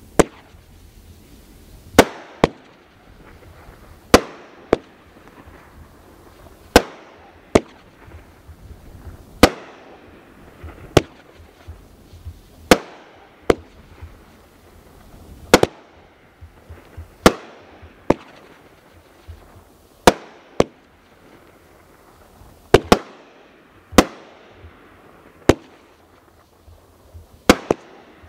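Cutting Edge Fireworks 'Stretch' multi-shot firework cake firing a sequence of aerial shots: sharp bangs every second or two, some in quick pairs, each followed by a fading hiss.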